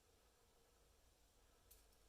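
Near silence: faint room tone, with one small, faint, high click near the end.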